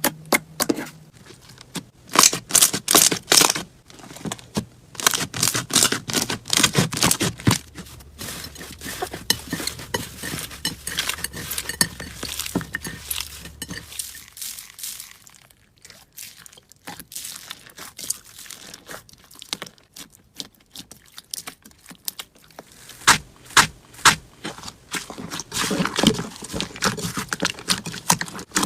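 Slime being squeezed, poked and stretched by hand: rapid crackles, clicks and pops, thinning to a quieter stretch in the middle and coming back dense and loud near the end.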